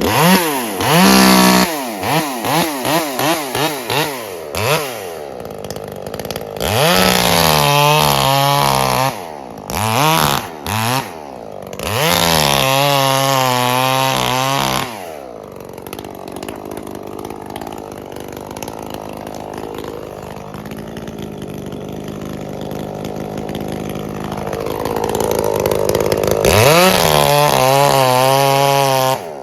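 Two-stroke chainsaw blipped through quick revs, then run at full throttle in several long stretches, as when cutting through wood with a new Archer chain that has a broken cutter. It then runs lower and steady for about ten seconds and revs up again near the end.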